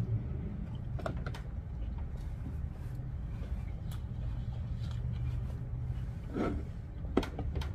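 Close-miked eating sounds: a mouthful of noodles being chewed, with a few soft wet clicks from the mouth over a low steady room hum, and one sharp tap a little after seven seconds.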